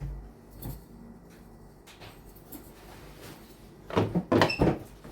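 Seasoning containers being handled on a kitchen counter: a knock at the start, then a cluster of sharp plastic clacks and rattles about four seconds in.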